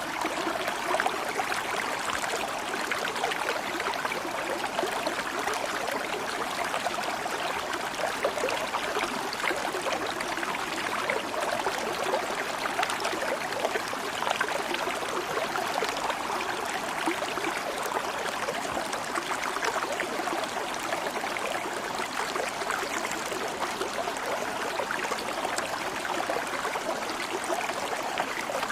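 Stream water flowing steadily and evenly.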